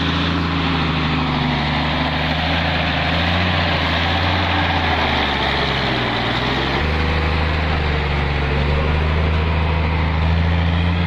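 Shaktiman 4x4 truck's diesel engine running steadily while pulling a full load of logs up a rough track. The engine note drops for about a second just past the middle, then picks back up.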